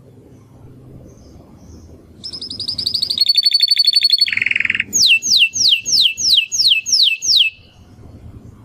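Domestic canary singing one song phrase. It starts about two seconds in with a fast trill, runs into a steady rolling trill and a short low buzzy trill, then ends with a run of about nine falling whistled notes, a few each second.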